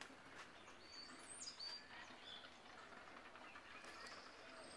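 Faint outdoor ambience with scattered short, high bird chirps.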